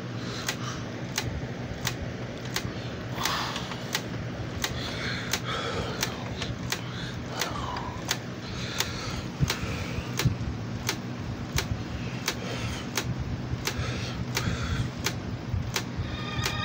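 Cassette tape playing back through a Califone portable cassette player's speaker during a blank stretch of the tape: steady tape hiss and a low hum, with a sharp click repeating about every two-thirds of a second.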